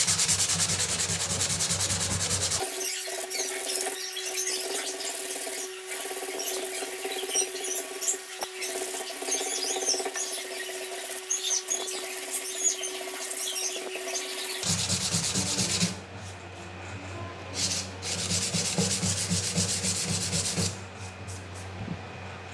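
Steel sword blade being hand-sanded with abrasive paper: quick back-and-forth rubbing strokes of the paper along the metal.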